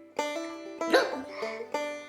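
Background music of plucked banjo notes in a bright, bouncy style. About a second in a brief, louder sound with a bending pitch cuts across the music.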